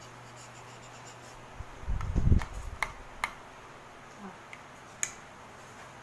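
A metal spoon stirring a thick, creamy fruit salad in a bowl: a dull thump about two seconds in, then a few light clicks of the spoon against the bowl.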